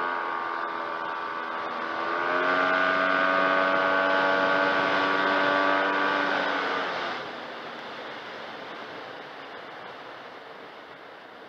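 Yamaha TMAX 500 maxiscooter's parallel-twin engine accelerating with a steady held engine note, which steps up and gets louder about two seconds in. Around seven seconds in the throttle closes and the engine drops away, leaving steady wind rush.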